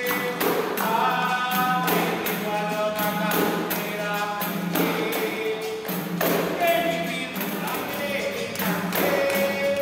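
Capoeira roda music: group singing over the berimbau and a pandeiro, with hand claps keeping a steady rhythm.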